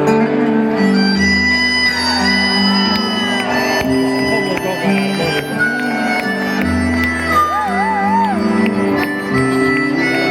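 Instrumental music, the intro of a song: a wind-instrument melody with wavering, bending notes plays over held low notes.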